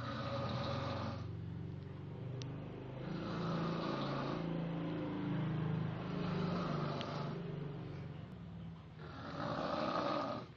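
Snoring in slow, regular cycles: a low rattling buzz about every three seconds, alternating with a breathy rush of air.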